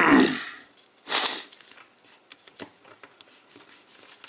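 Sheet of paper rustling and crinkling as it is folded back over and creased by hand. A loud rustle at the start and another about a second in, then faint scattered crackles.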